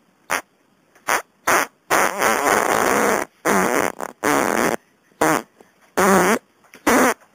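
A person farting in a rapid series of about nine blasts: three short ones, then one lasting over a second, then five more short ones.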